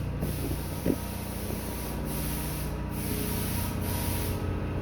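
Ported Stihl MS461 two-stroke chainsaw with a custom exhaust, idling steadily.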